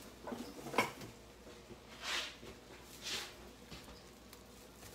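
Plastic wrap being pulled from a restaurant roll and handled, giving short crinkling rustles, with one sharp click about a second in.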